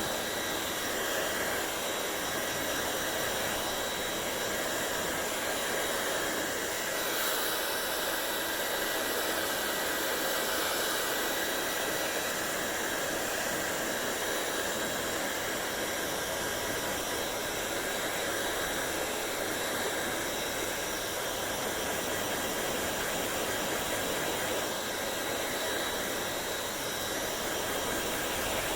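Hair dryer running steadily: a constant rush of blown air with faint high steady whine tones, growing a little brighter about seven seconds in.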